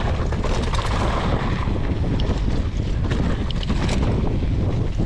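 Wind rushing over a GoPro's microphone as a mountain bike descends a trail at speed, with scattered short clicks and rattles from the bike over the ground.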